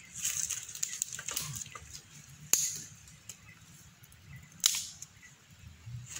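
Two sharp cracks of dry firewood being broken up, about two seconds apart, among rustling of dry leaves and twigs.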